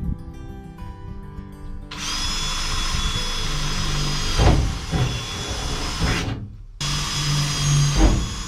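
Power drill boring the corner holes through the bus roof: it starts about two seconds in with a high steady whine, runs for about four seconds, stops briefly, then runs again for about two seconds, with a thud near the end of each run.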